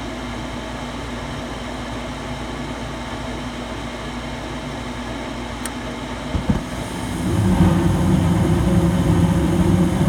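Coleman DG9F gas furnace running its ignition sequence: the inducer fan hums steadily while the hot-surface igniter glows. About six and a half seconds in the gas valve clicks open and the burners light, and the sound steps up to a louder, steady burner roar on top of the fan.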